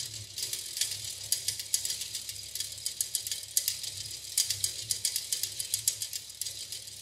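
3D-printed plastic Theo Jansen linkage mechanism running, its many plastic joints giving a fast, uneven clicking rattle, over a faint low hum.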